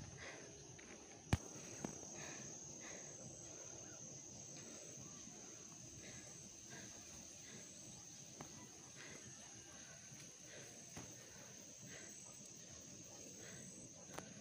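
Faint outdoor ambience with a steady, high-pitched insect drone held without a break, and a single sharp click about a second in.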